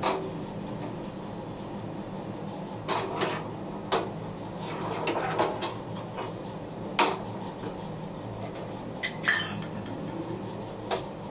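Steel utensils clinking and knocking: a spoon scraping and tapping on a steel plate and a kadai as ground masala paste is put into the pan. About eight separate clinks come at irregular intervals over a steady low hum.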